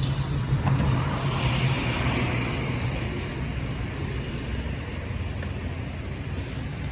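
A motor vehicle engine running steadily, with a louder swell of noise about one to three seconds in, as of traffic passing.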